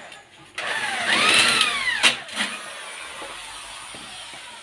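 Corded electric drill working into a galvanized light-steel frame. Its motor whine rises in pitch and falls back over about a second, ending in a sharp click about two seconds in.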